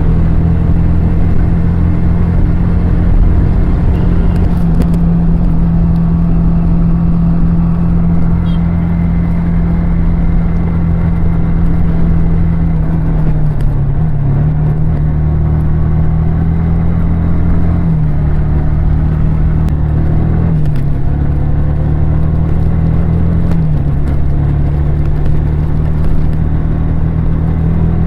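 Yamaha R15 V3's 155 cc single-cylinder four-stroke engine and exhaust running loud and steady while riding, its pitch dipping slightly a few times and coming back up.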